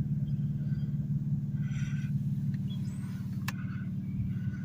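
A car driving along: a steady low hum of engine and road noise, with a single sharp click about three and a half seconds in.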